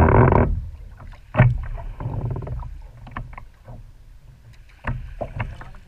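Water rushing and splashing against a surfski's hull as it is paddled through wind chop. A loud wash fades in the first half second, followed by several sharp slaps of water against the hull.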